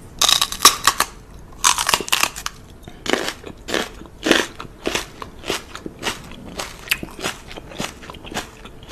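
A string of short, wet smacking kisses: a couple of louder clusters in the first two seconds, then single smacks about twice a second.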